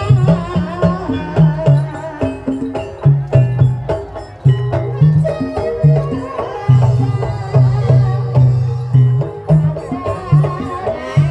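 Ebeg (kuda lumping) accompaniment music: regular drum strokes over a low melody that steps from note to note, with higher pitched notes ringing above.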